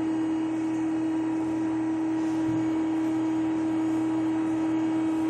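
Underwater treadmill machinery running with a steady, even hum.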